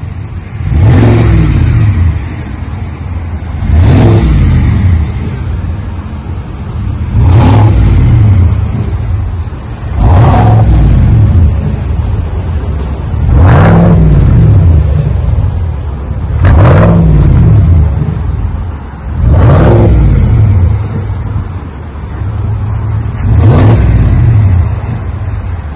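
2020 GMC Sierra AT4's 6.2-liter V8 exhaust through a single-chamber V-tube muffler, with the factory resonators kept, giving a low rumble. The engine is revved eight times, about every three seconds, each rev climbing and falling back to idle.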